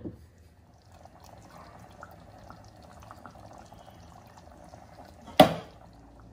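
Thick curry simmering in a pot, bubbling with small soft pops, then one loud sharp knock near the end.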